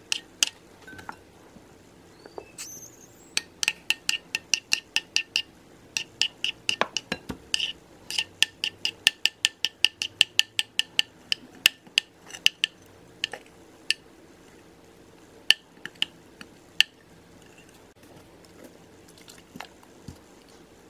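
A metal spoon stirring a white liquid slime mixture in a bowl, clinking against the bowl's sides. The clinks come in quick runs of several a second through the first half, then turn sparse and irregular.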